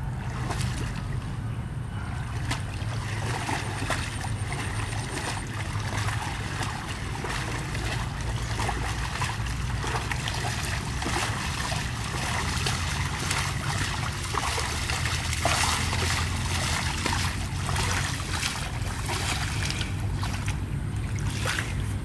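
Water buffalo wading through shallow water, its legs splashing again and again, over a steady low rumble.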